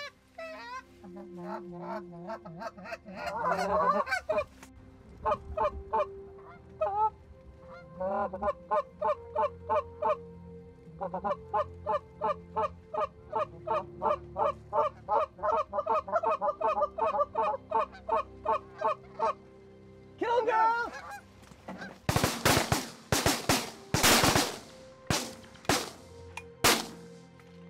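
Canada goose calls blown by hunters in a fast, steady string of short honks and clucks. About twenty-two seconds in, a ragged volley of shotgun shots from several guns, eight or more in about five seconds, as the flock comes over the decoys.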